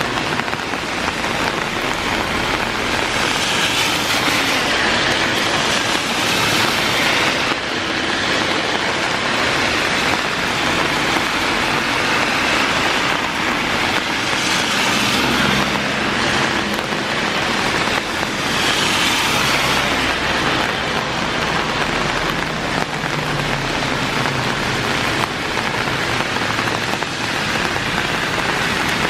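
Heavy rain falling steadily, with cars passing on the wet road: their tyre hiss swells up and fades away about three times, a few seconds in and twice more past the middle.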